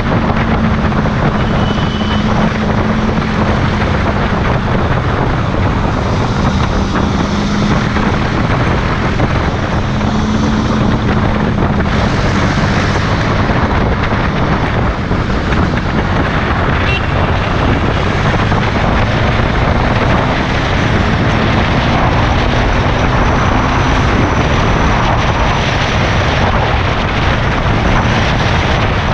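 Motorcycle on the move at road speed: steady rushing wind on the microphone over a low, wavering engine hum.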